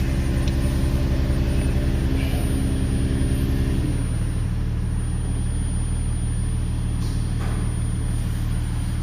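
Ford Mustang engine idling steadily, its note changing about four seconds in. It is running in failsafe mode with the fuel rail pressure sensor unplugged.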